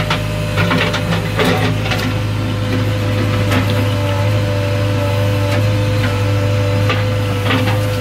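JCB 3DX backhoe loader's diesel engine running steadily under hydraulic load, heard from inside the cab. Scattered sharp clicks and knocks from the working backhoe arm and bucket come through over the engine every second or so.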